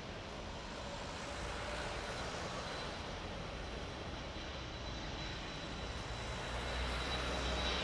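Airbus A330 airliner's twin jet engines at takeoff thrust during the takeoff roll: a steady rushing roar with a thin high whine on top, and a low rumble that grows louder near the end as the jet passes.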